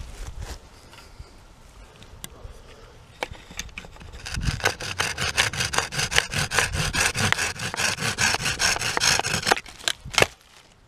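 A small hand saw cutting through the wooden plug of a bamboo whistle where it is set in the tube, trimming off the excess. The sawing starts about four seconds in as quick, even strokes, about six a second, for roughly five seconds, and ends with a couple of sharper clicks.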